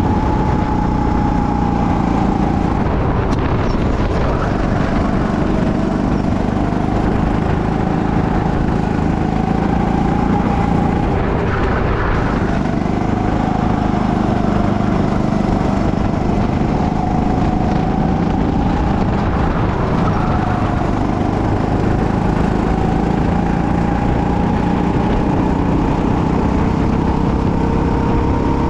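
Go-kart engine running at racing speed from the driver's seat, its note rising and falling again and again, over a steady low rumble.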